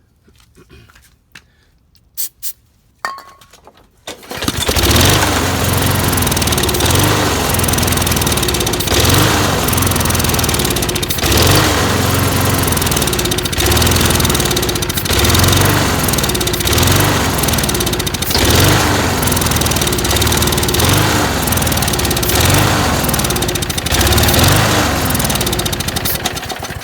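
Briggs & Stratton lawn mower engine catches about four seconds in and runs loud and unsteady, its speed rising and falling about every second and a half, then cuts out at the end. The surging comes from fuel starvation: the channel holes in the carburettor float bowl bolt are clogged, so too little fuel reaches the mixture.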